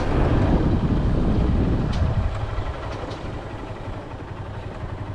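A vehicle running, with a loud low rumble of wind on the microphone that eases off about two seconds in, leaving a quieter steady engine and road noise.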